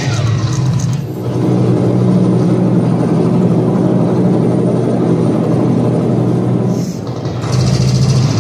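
Loud recorded soundtrack played over the stage speakers: a steady low rumble with a strong hum, like a running engine, that dips briefly twice, about a second in and near the end.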